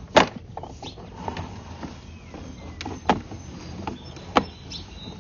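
Sewer inspection camera equipment clacking and knocking as the push cable feeds the camera further down the line: three sharp clacks and a few lighter ticks over a steady low hum.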